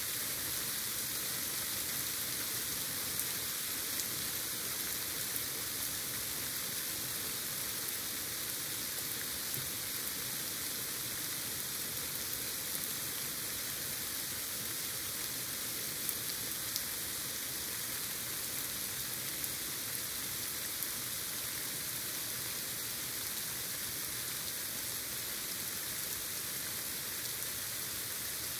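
Heavy rain pouring down steadily in a dense, even hiss, with scattered sharp taps of single drops striking close by.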